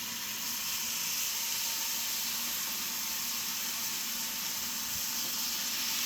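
Turkey bacon sizzling in a hot frying pan: a steady hiss that grows a little louder about half a second in.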